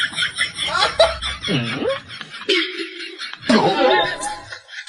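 Snickering, chuckling laughter, broken off about halfway through by a short held note.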